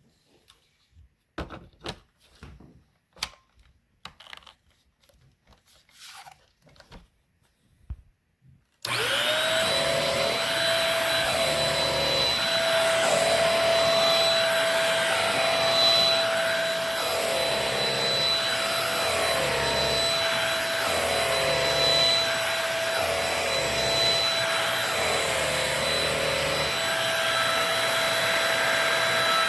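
Shark Rocket TruePet stick vacuum: a few scattered clicks and knocks while it is off, then about nine seconds in the motor switches on with a quick rising whine and runs steadily. Its sound wavers regularly about every two seconds.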